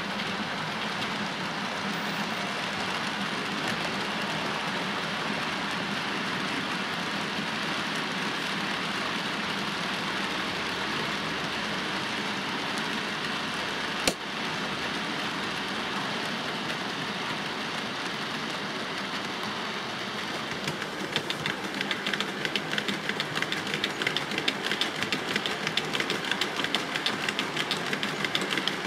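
OO-gauge model trains running on the layout: a steady whir of motors and wheels on the track, with one sharp click about halfway through. Near the end a rapid clicking sets in as a locomotive with a rake of coal hopper wagons rolls over the rail joints.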